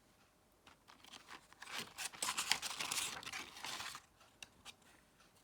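Paper rustling and crinkling as a picture book's pages are handled and turned, from about a second in until about four seconds in, followed by a few faint ticks.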